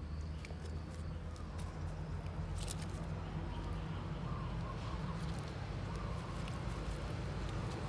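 Young puppies giving faint, short whimpers over a steady low rumble.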